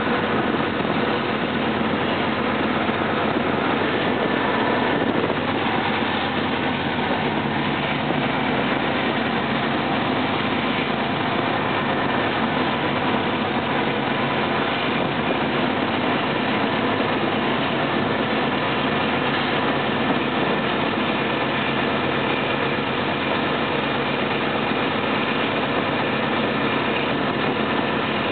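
Diesel-electric locomotive's engine running steadily and loudly, working as a pusher behind a coal train, heard at close range from the walkway beside the engine hood.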